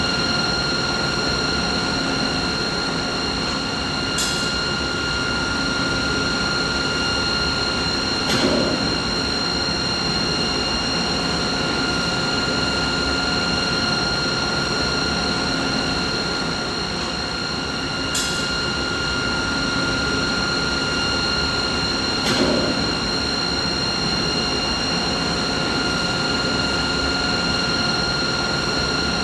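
Steady machine noise: a constant high whine with evenly spaced overtones over a rumbling hiss. A short click and a brief knock come twice each, the pattern repeating about every fourteen seconds.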